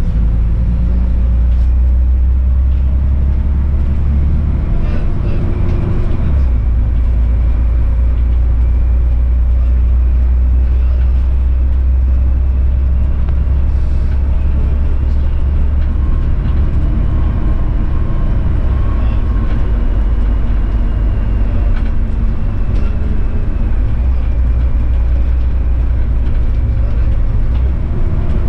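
Bus driving along a snowy road: a steady low engine drone with tyre and road noise, and a faint whine that slides up and down in pitch. The drone briefly changes about six seconds in.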